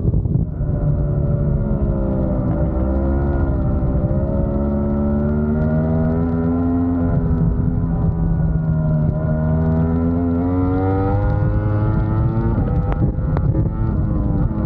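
Yamaha R1 superbike's inline-four engine at high revs on track, heard from on board: the pitch drops as the bike brakes for a corner and climbs again under hard acceleration, twice over. A couple of sharp cracks come as it slows again near the end.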